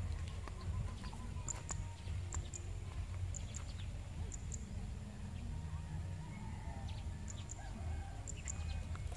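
Quiet rural outdoor ambience: chickens clucking faintly in the distance, pairs of short high chirps about once a second, and a steady low rumble underneath.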